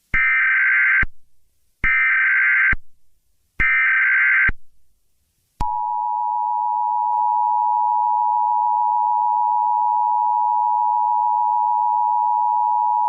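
Emergency Alert System alert opening: three one-second bursts of warbling digital SAME header data, then about five and a half seconds in the steady two-tone EAS attention signal starts and keeps sounding. The header and tone introduce a required monthly test of the Emergency Alert System.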